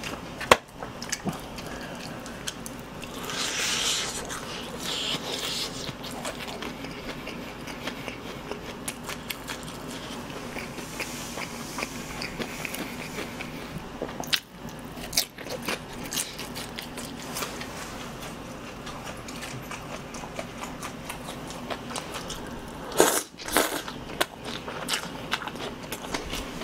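Close-miked chewing of crunchy fried chicken, with wet mouth sounds and many short crisp clicks. The crunching is loudest a few seconds in, and there are a couple of sharper clicks near the end.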